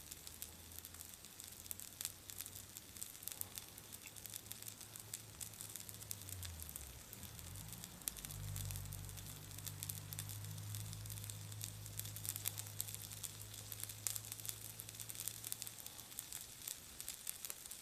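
Shrimp pilaf frying in butter on an electric hot plate, left untouched, sizzling with a steady patter of small crackles and pops. A low hum runs underneath and wavers in pitch about seven seconds in.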